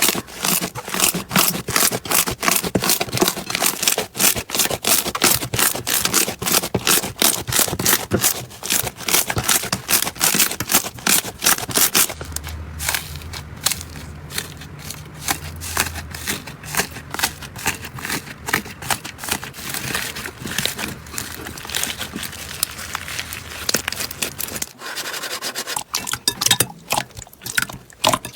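Slime being squeezed and poked by hand, giving dense rapid crackling and popping clicks. About twelve seconds in it changes to softer, quieter crackles over a low steady hum, and a louder burst of crackling returns near the end.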